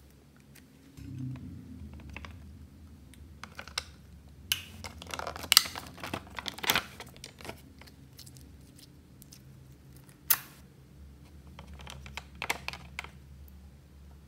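Slime being squeezed, pressed and pulled by hand in a glass dish: irregular sticky clicks and crackling pops, thickest around the middle, with one sharp pop about two thirds of the way through.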